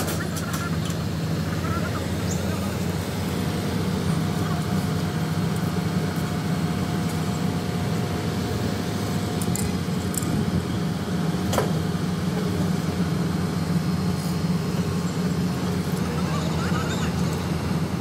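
Heavy mobile crane's diesel engine running steadily under load, a low drone, with a single sharp knock a little past halfway.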